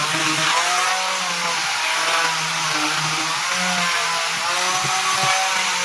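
Electric power tool running continuously on wood, its motor pitch wavering up and down as the load changes.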